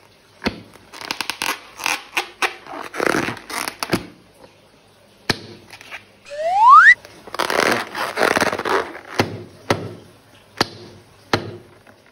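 Wet slime squelching and squishing as it is squeezed out of balloons and piping bags, among sharp clicks and taps. A short rising squeak comes about six seconds in, just before the loudest squelching.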